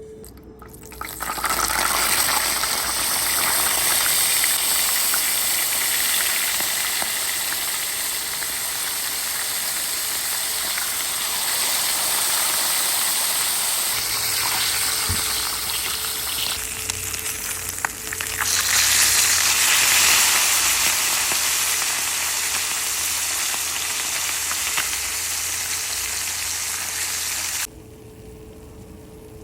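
Fish sizzling as it fries: a steady, loud hiss that swells a little past halfway and cuts off suddenly near the end.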